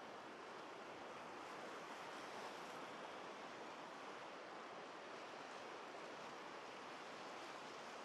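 Small waves breaking offshore and washing up onto a sandy beach: a steady, low surf wash with no distinct crashes.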